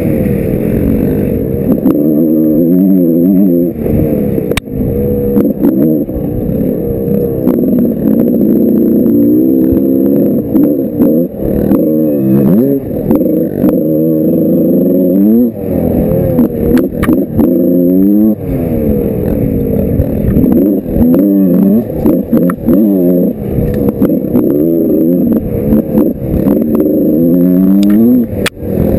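Yamaha YZ125 big-bore two-stroke dirt bike engine, heard from on the bike, revving up and down over and over as it is ridden hard along the trail. Occasional sharp knocks come through over the rough ground.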